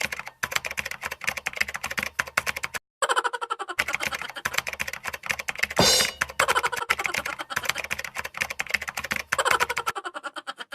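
Rapid, irregular clicking like keys being typed, with a brief break about three seconds in and a louder noisy burst about six seconds in.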